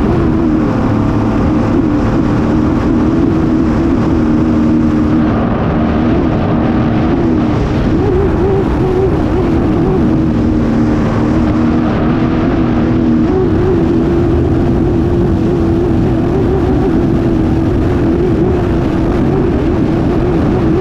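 Racing hydroplane's engine running flat out, heard from on board as a loud, steady high engine note. The note wavers in pitch a few times, once about a third of the way in and again past the middle. Under it is a heavy rumble of wind and water spray hitting the boat and the microphone.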